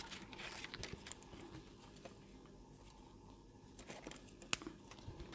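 Faint rustling and light clicks of paper and a glue-dot roll being handled, with a sharper tick about four and a half seconds in.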